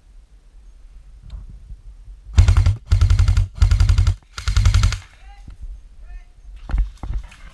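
Airsoft rifle firing four short full-auto bursts of about half a second each, in quick succession, starting a little over two seconds in. A few single knocks follow near the end.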